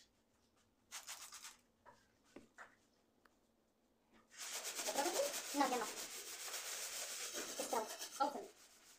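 Metal scouring pad scrubbing a soapy, greasy stove top, a short scrub about a second in, then brisk, continuous back-and-forth strokes from about four seconds in, working at grease stuck to the surface.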